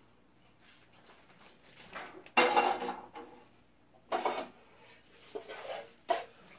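Pots and utensils clattering: one loud knock with a short ring about two seconds in, then a few smaller knocks and clinks near the end.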